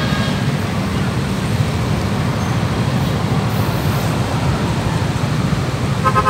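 Road traffic: motorcycles and a minibus running along the street, a steady low rumble. Right at the end a vehicle horn starts sounding in short repeated blasts.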